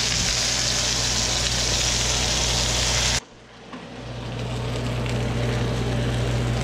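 Whole trout frying in hot oil in a skillet: a steady, dense sizzle over a low hum. The sizzle cuts out abruptly about three seconds in and swells back over the next second.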